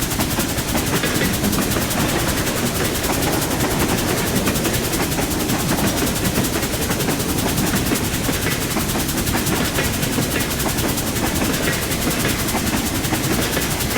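Train running past at steady speed, a continuous rumble with a fast, even rattling clatter.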